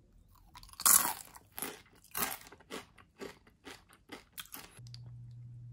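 Close-up chewing of a rolled Doritos tortilla chip: a series of crisp crunches, the loudest about a second in, getting quieter and further apart over the next few seconds.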